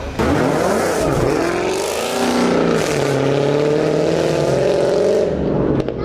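Performance car accelerating hard, its engine note climbing with a gear change about a second in, then held at high revs.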